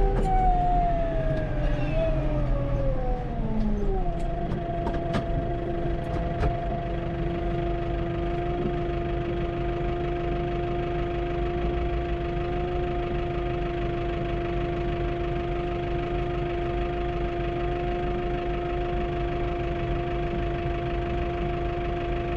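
Tractor running, heard from inside the cab: a whine that falls in pitch over the first four seconds as it slows, then holds steady over a low engine rumble.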